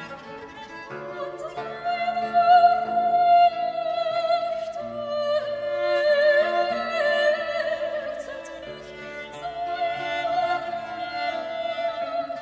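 Live classical music: women's voices sing long held notes with vibrato over bowed strings. The music swells about two seconds in.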